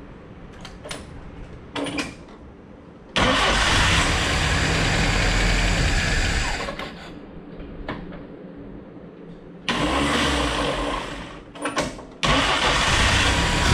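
1949 Willys CJ-3A's four-cylinder flathead engine being started after an oil change, to build oil pressure. After a few light clicks it starts in three goes: two short spells of running that cut off, then a third, about twelve seconds in, that keeps running.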